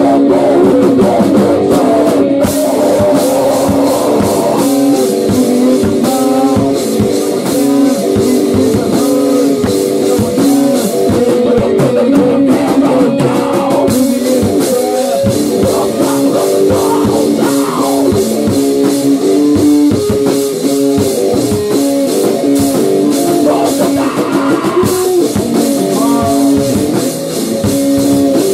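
Rock band playing: guitar over a drum kit, steady and loud.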